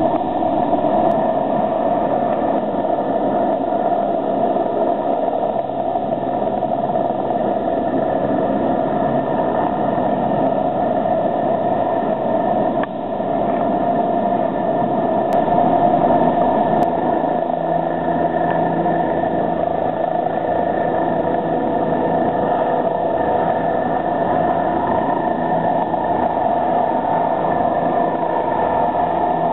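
Turbine helicopters running and departing one after another: a steady turbine whine over rotor noise. The sound dips briefly about 13 seconds in, where one takeoff gives way to the next.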